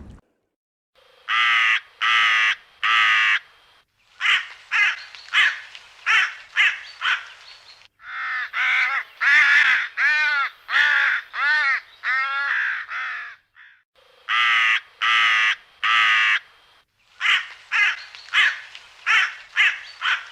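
Crow cawing: harsh calls in quick runs of three to nine, with short pauses between the runs.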